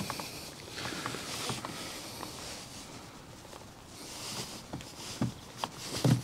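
Scratching and rubbing of a metal mesh radiator grille being worked into a car's front bumper intake by hand, with small scattered clicks and a few sharper taps near the end as its retaining clips are pushed to locate.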